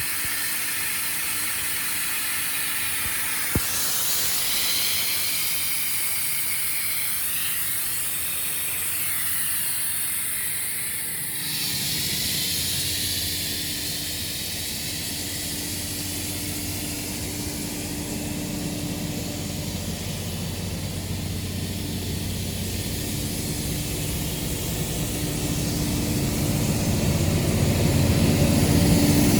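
1996 Sullair 750 portable air compressor, driven by a Cat 3306 inline-six diesel, running with a steady hiss of air over the engine's hum. There is a single sharp click about three and a half seconds in, and the sound grows louder near the end.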